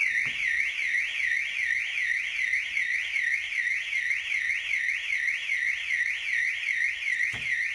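Autowatch 695 vehicle alarm siren sounding with a warbling tone that sweeps up and down in pitch about twice a second. It has been triggered by the door being unlocked and opened while the system is armed.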